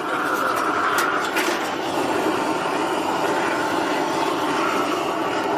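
Gas torch burning with a steady rushing noise as it heats a copper cauldron to keep the tin molten for hand tinning. A couple of faint clicks come about a second in.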